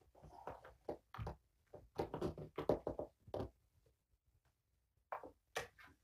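A string of soft, irregular knocks, thumps and rustles as kittens scramble around a plastic ramp and are handled on a carpeted floor, busiest about two to three seconds in.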